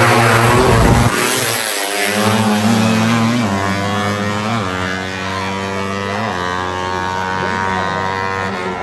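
Drag-racing motorcycles launching off the start line about a second in and accelerating hard down the strip. Engine pitch climbs and drops back at each gear change, about four shifts, growing slightly fainter.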